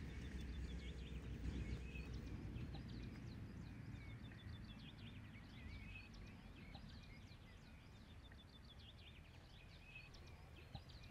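Faint birdsong: several small birds chirping and twittering in short, quick notes, over a low background rumble that fades away during the first few seconds.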